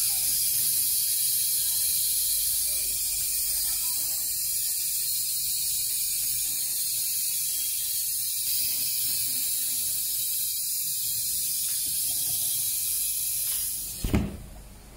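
Salt spray test chamber atomizing salt fog, a steady high hiss. Near the end a single sharp knock as a hand strikes the chamber's clear panel, and the hiss then stops.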